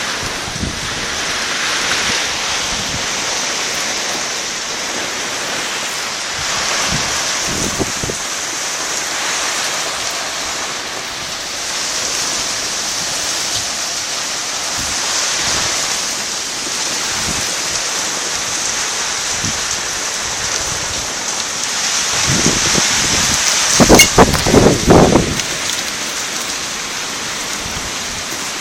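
Hail and rain pelting down in strong wind, a steady dense hiss that swells and eases in gusts. About 24 seconds in, a brief cluster of loud thumps and buffets stands out.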